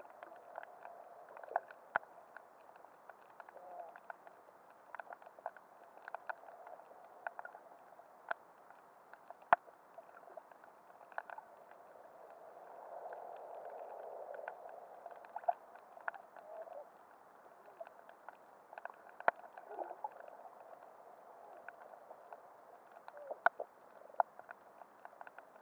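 Underwater sound picked up by a camera in a waterproof housing: a muffled wash of moving water with scattered sharp clicks and crackles. The wash swells for a few seconds midway through.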